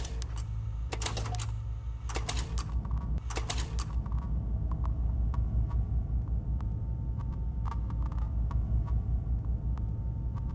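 A steady low hum with scattered sharp clicks and ticks over it, the clicks coming thickest in the first few seconds and thinning out afterwards.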